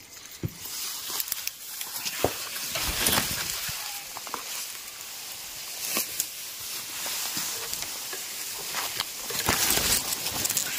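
Tall dry grass and undergrowth rustling as someone pushes through it on foot, with many scattered sharp snaps and crunches of stems.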